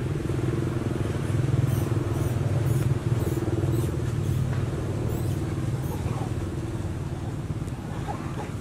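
A motor vehicle's engine running with a steady low drone that eases off slightly in the second half.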